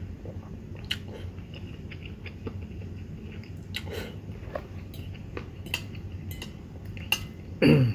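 A person eating instant noodles: chewing and slurping, with a metal fork and spoon clicking against a ceramic bowl as the noodles are tossed. A short, loud mouth sound with a falling pitch comes near the end.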